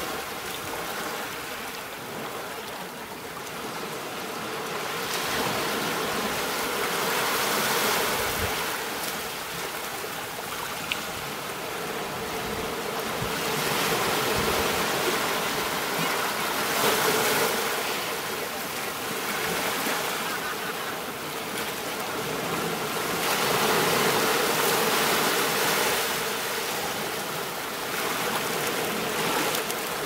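Ocean surf: waves breaking and washing up a sandy beach, the rush of water swelling and fading every several seconds.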